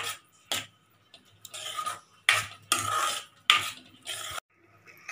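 Metal ladle stirring and scraping thick cooked semolina dough around a kadhai, in a series of uneven scraping strokes. The rava has absorbed the water and is being worked into a single ball of dough.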